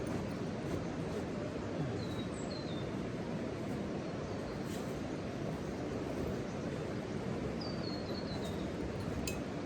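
Birds giving short, falling chirps, a couple about two seconds in and a quick run of several near the end, over a steady rushing noise.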